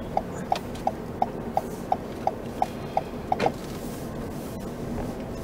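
Car turn-signal indicator ticking, about three ticks a second, then stopping about three and a half seconds in; steady car-cabin road noise underneath.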